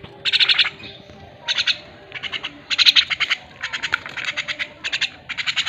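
Javan mynas (jalak kebo) giving harsh, chattering calls: a string of short rattling bursts, each a quick run of notes, repeated about every half second.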